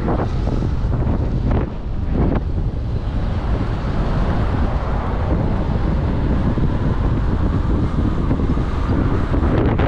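Wind buffeting the microphone while moving along a road: a loud, steady rush with a deep rumble underneath and a few stronger gusts in the first couple of seconds.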